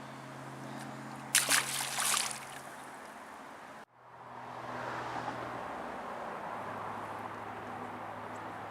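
Water splashing and sloshing for about a second near the start, then, after a sudden break, a steady rush of flowing river water.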